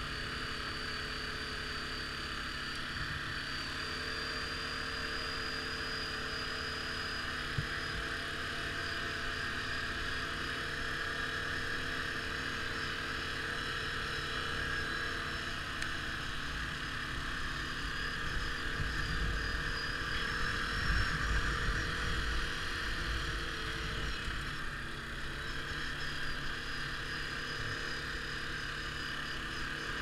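ATV engine running steadily while riding over a dirt field, with wind rumbling on the microphone; the low rumble gets louder a little past the middle.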